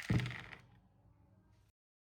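Angle grinder winding down after switch-off, with a single low thump just after the start, fading away to nothing.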